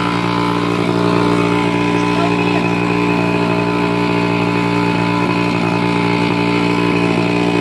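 Mini motorcycle's small engine running loud and steady, holding one even pitch.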